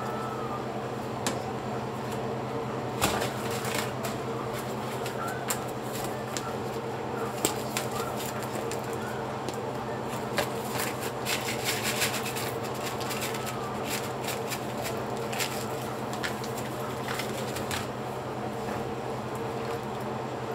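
A paper soup-mix sachet crinkling and being torn open, with a run of sharp crackles and clicks in the first half, over a steady low hum.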